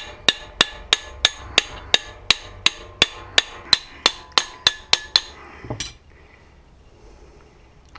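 Light, even hammer taps, about three a second, each with a short metallic ring, driving a new ball bearing into its housing in a Solex moped engine block. The tapping stops about five seconds in, followed by one or two softer knocks.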